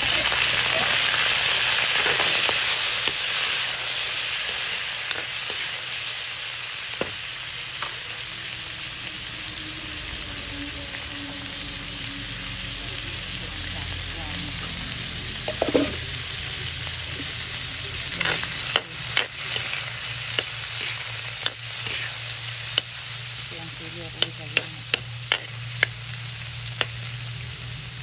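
Sliced red chilies, shallots and garlic sizzling in hot oil in a black wok. The hiss is loudest at first and slowly eases. In the second half a metal spatula stirs them with sharp scrapes and taps against the wok.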